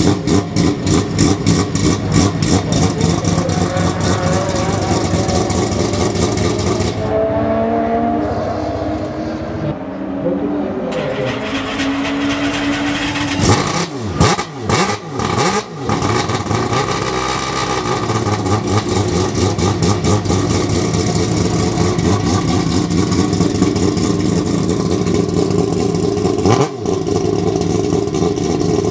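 Mazda RX-8 racing car's rotary engine running at a choppy, pulsing idle. A few seconds in, it swings up and down in pitch, then takes several quick throttle blips before settling into steadier running.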